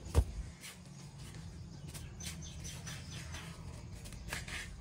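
A single sharp knock, then a bird chirping faintly in a quick run of short high notes, over a low steady hum.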